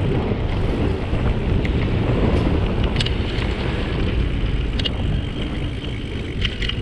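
Wind rushing over the microphone of a camera moving along a paved street, a steady low rumble, with a few light clicks or rattles about midway and near the end.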